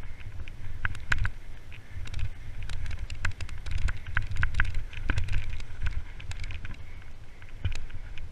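Mountain bike descending a dirt trail at speed: wind buffeting the camera microphone as a steady low rumble, with frequent sharp clicks, rattles and knocks from the bike jolting over the rough ground.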